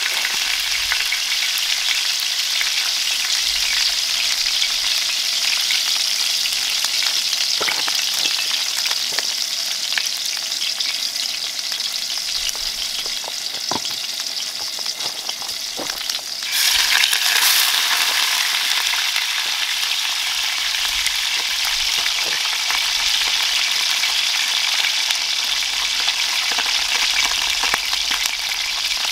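Hot oil sizzling steadily in a pan on a camp stove. About sixteen and a half seconds in the sizzle suddenly jumps louder as a cleaned trout goes into the oil, then carries on frying.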